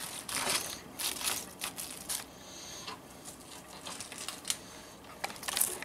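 Raw cabbage wedges being pressed by hand into a stainless steel pot: irregular crisp rustling and crunching of the leaves, with scattered light knocks.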